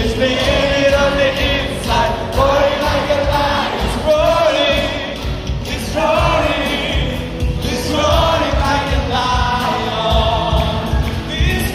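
Worship music: a group of voices singing a gospel song in phrases of about two seconds, with amplified instrumental backing.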